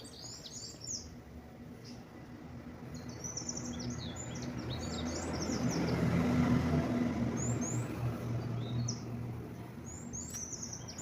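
Small birds chirping on and off, while an engine hum passes by, swelling to its loudest about six seconds in and then fading away.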